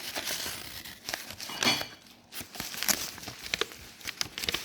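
Paper rustling and crinkling as it is handled and unfolded, with a short pause about two seconds in.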